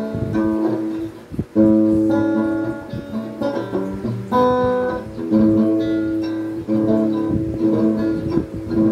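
Acoustic guitar played through a clip-on soundhole pickup into a small portable speaker, strumming and picking a slow run of chords, each one left to ring for a second or so before the next.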